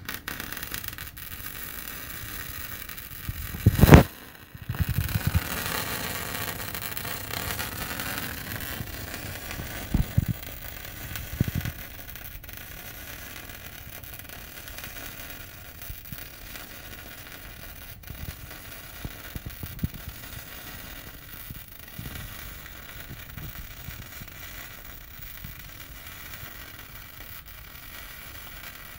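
MIG/MAG welding arc from a Migomat 3000T welder crackling and hissing steadily as a weld bead is laid on steel plate, with one short, loud burst about four seconds in.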